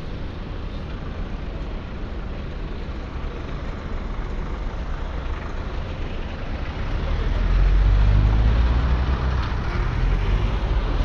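City road traffic running steadily. A large motor vehicle passes close by, its low engine rumble building to its loudest about eight seconds in and then easing off.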